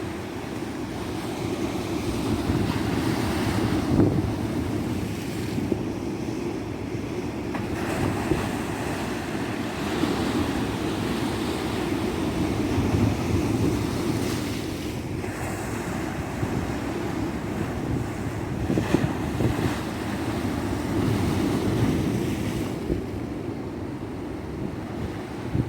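Ocean surf breaking and washing up a beach, a continuous rush that swells and eases every few seconds, with wind buffeting the microphone.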